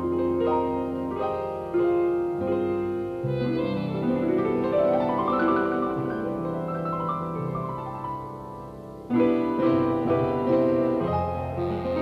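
Piano music playing chords and melody, with a rising run of notes near the middle and a soft passage that gives way to a loud chord about nine seconds in.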